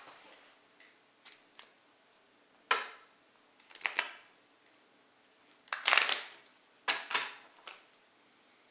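Playing cards being shuffled: a series of short, irregular riffles and rustles, the longest and loudest about six seconds in.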